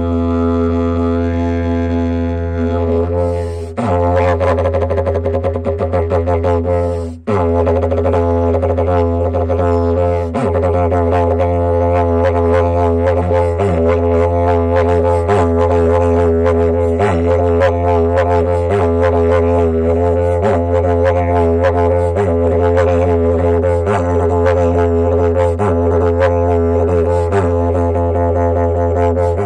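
Didgeridoo playing a continuous low drone, its overtones shifting and pulsing in a steady rhythm. The drone breaks off briefly twice in the first several seconds.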